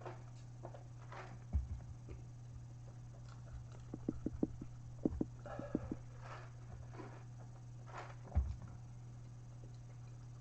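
Close-miked eating sounds: chewing and crunching of a fried hot chicken sandwich, with short crackles and a couple of soft knocks, over a steady low hum.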